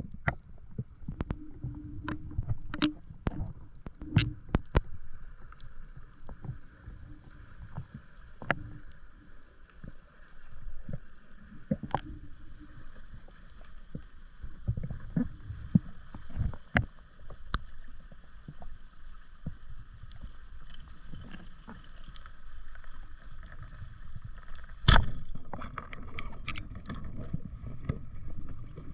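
Underwater sound heard through a diver's camera housing: a low rumble of moving water with scattered sharp clicks and knocks. Near the end comes one loud sharp crack, the band-powered speargun firing its shaft.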